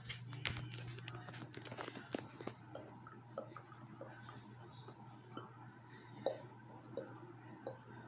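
Ventisol ceiling fan running at speed 3 in reverse (exhaust, upward) mode: a faint steady low motor hum with scattered irregular light clicks.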